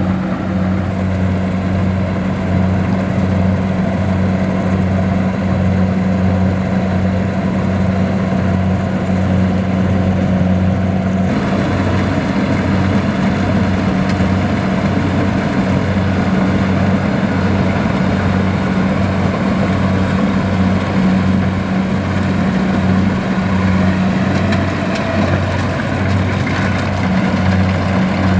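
Kubota rice combine harvester's diesel engine running steadily while harvesting, a constant low drone with a regular pulse. The sound shifts a little about eleven seconds in.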